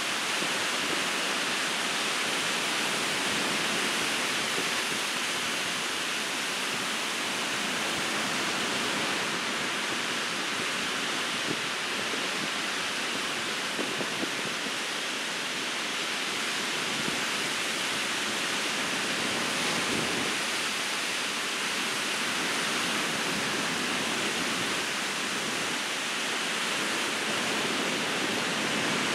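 Steady rushing wash of ocean surf breaking on a beach.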